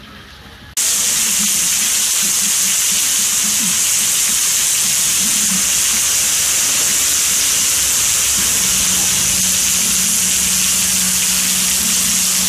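Heavy hurricane rain pouring down as a loud, steady hiss, starting abruptly about a second in.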